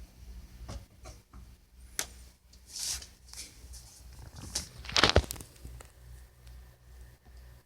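Small handling noises: scattered clicks and a brief rustle, with a sharper knock about five seconds in, over a faint low hum.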